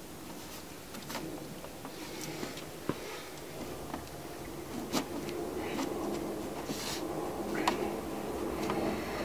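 Hands fitting a plastic fuel container into its bracket and threading its strap: scattered light clicks and knocks of plastic and strap buckle, over a faint steady hum.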